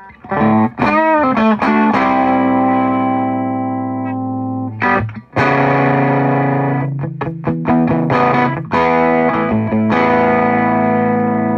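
Electric guitar played loud through a modded Ibanez TSA15 single-6V6 valve amp with its volume at 3 o'clock and boost and tube screamer off, still clean. Chords are struck and left to ring, with a wavering note about a second in, quicker strums later, and a final chord ringing out.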